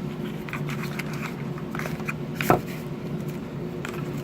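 Small product packaging being handled by hand: light clicks and rustles, with one sharper knock about halfway through.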